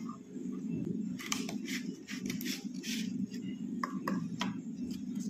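Cardboard box and paper insert being handled: irregular rustling, scraping and light taps of card and paper, over a steady low hum.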